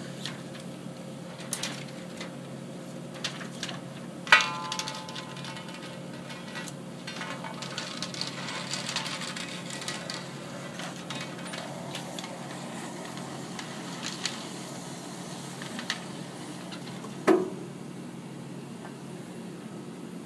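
Steady hum of film projection machinery with scattered light clicks as the 70mm film platters are handled, and two sharp metallic knocks, the first about four seconds in ringing on briefly, the second near the end.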